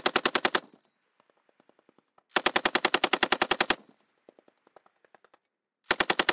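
M240B 7.62 mm machine gun firing short bursts at about ten rounds a second: one burst ending about half a second in, a longer burst of about a dozen rounds in the middle, and another burst starting near the end. Fainter shots sound in the gaps between bursts.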